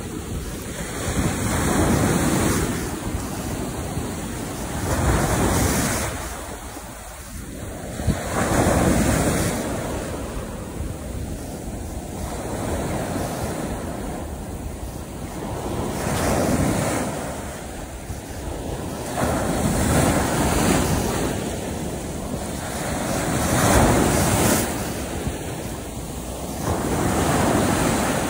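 Ocean surf breaking on a beach, each wave crashing and washing up the shore in a swell of noise about every three to four seconds.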